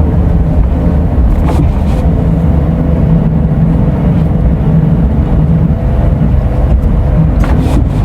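Scania Euro 6 diesel engine of an Irizar i6S coach running steadily at cruise, heard from inside the moving coach, with a faint steady whine over the drone. Two brief knocks or rattles, about a second and a half in and near the end.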